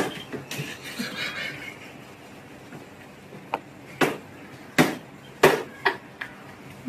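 About six short, sharp taps and knocks, spaced unevenly through the second half, over quiet room noise.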